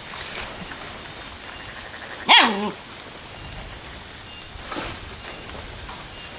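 A dog gives one sharp yelp that falls steeply in pitch, about two seconds in, with a fainter short sound near the five-second mark.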